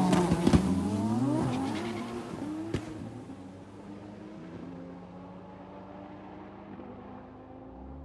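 A drag-racing car at full throttle pulling away down the strip: the engine note drops and climbs again through quick gear changes with a few sharp cracks, then keeps rising as it fades into the distance.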